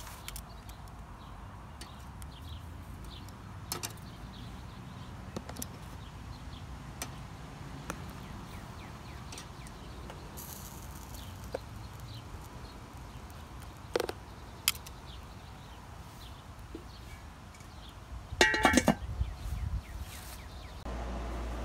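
Food being lifted off a charcoal kettle grill's wire grate, with scattered light clicks and a knock of a utensil against the metal. About 18 seconds in, the grill's metal lid clatters loudly into place with a brief metallic ring.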